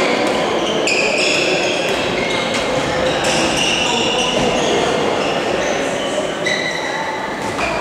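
Players' sneakers squeaking on a sports hall floor during handball play, many short high squeaks over a steady background of voices.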